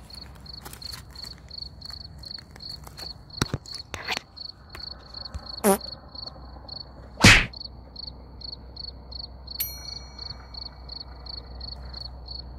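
A cricket chirping steadily, about three high chirps a second. Scattered clicks and knocks sound over it, with one louder brief thump a little past halfway.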